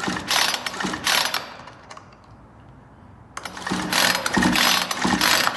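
Chainsaw recoil starter pulled again and again, spinning the engine with its spark plug out to check for a spark. Quick rasping strokes come in two runs, with a short pause about two seconds in.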